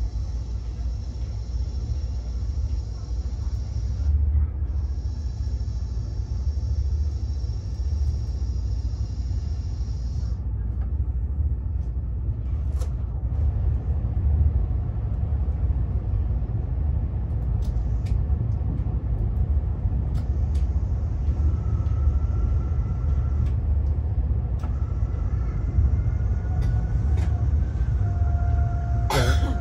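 Steady low rumble inside the cabin of a Fuxing high-speed train, with a faint high hiss that stops about ten seconds in. Faint steady tones come in during the last third, and there is a sharp click just before the end.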